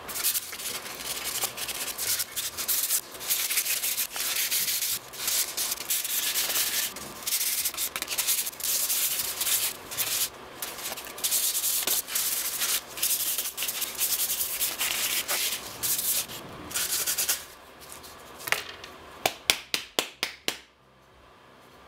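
Hand-sanding a CNC-cut wooden plaque with a piece of sandpaper: quick, repeated rasping strokes that smooth off marks and tab remnants. Near the end comes a quick run of about eight sharp taps.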